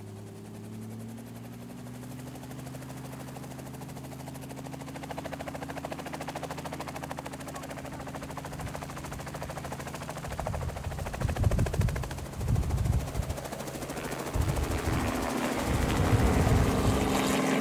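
Light two-bladed helicopter running on the ground and lifting off: rotor blades beating rapidly over a steady engine tone, which rises slightly in pitch at the start and grows louder throughout. From about ten seconds in, gusts of wind buffet the microphone.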